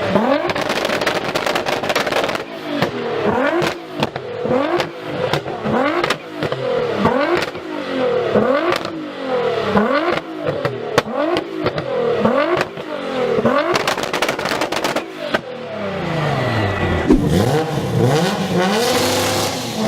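Car engine with a loud exhaust, revved again and again in quick blips a little more than once a second, with crackles and pops between the revs. Near the end the engine note falls in one long sweep.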